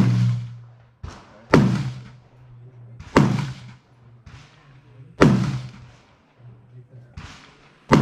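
Gunshots on a shooting range: a loud shot about every one and a half to two seconds, each echoing away, with fainter shots between them. A low steady hum runs underneath.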